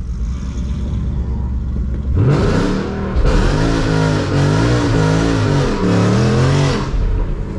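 Ford Mustang GT's 5.0-litre V8 idling, then from about two seconds in revving up and holding high revs that rise and fall repeatedly under a loud hiss, during a burnout on rear drag slicks.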